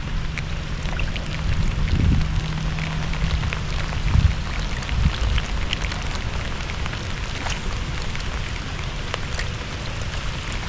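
Rain falling on the water, with many single drops ticking close to the microphone, and low rumbling swells about two and four seconds in.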